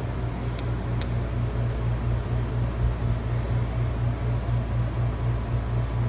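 Generic hugger ceiling fan running on medium speed, with the room air conditioner on: a steady low hum that pulses about three or four times a second.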